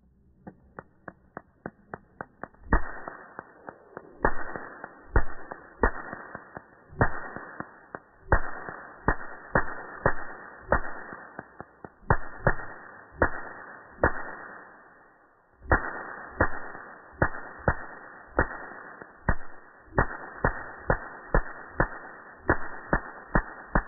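Electric fly-swatter racket sparking again and again through a fly caught in its mesh. It makes a string of sharp snaps at uneven spacing, starting about half a second in and pausing briefly near the middle.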